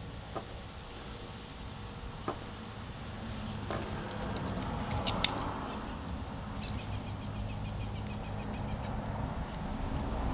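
Small metal clicks and light jingling of a key and a glove box lock cylinder being handled and worked, with clusters of clicks about four to five seconds in and again around seven seconds, over a steady low hum.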